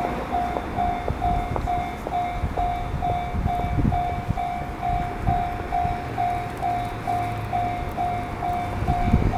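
Japanese railway level-crossing warning bell ringing steadily, an electronic ding repeating about three times a second, with a low rumble and a few soft thumps underneath.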